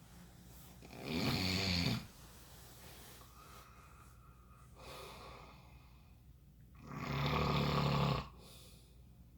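A person snoring: two loud snores about six seconds apart, each about a second long, with a quieter breath between them.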